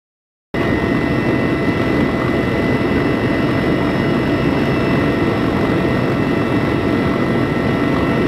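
Loud, steady aircraft engine noise with a thin high whine, cutting in abruptly about half a second in.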